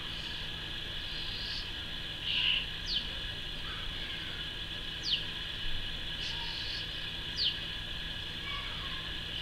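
Garden birds calling: three short, high notes, each sweeping quickly downward, a couple of seconds apart, over a steady high-pitched hiss.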